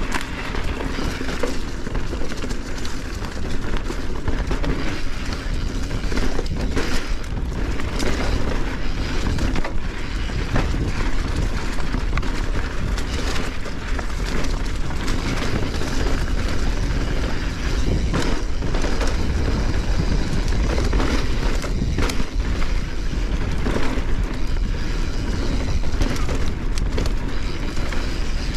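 Mountain bike ridden along a dirt trail: steady rolling and rattling noise with frequent short knocks as the bike goes over bumps.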